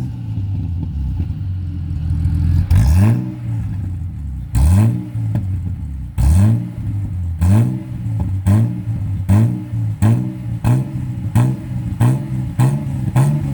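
Car engine with a newly built exhaust idling and being blipped over and over, each rev rising sharply and dropping back to idle. The blips are a couple of seconds apart at first and come faster and faster toward the end.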